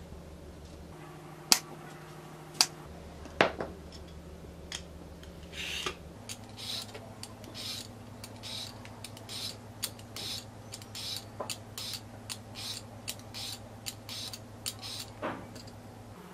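A knife chops through a cucumber onto a wooden cutting board with three sharp knocks. Then a vegetable peeler scrapes strips of skin off the cucumber in quick repeated strokes, about two a second.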